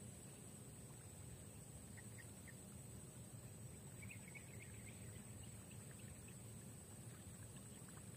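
Faint outdoor ambience: a steady low rumble and a thin, steady high-pitched whine, with a few faint short chirps about two seconds in and a quick cluster of them around four to five seconds in.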